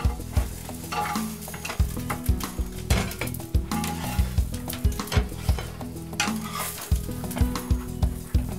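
Dampfnudeln sizzling in a hot frying pan as they are lifted out, with frequent clicks and knocks of a utensil against the pan and plate.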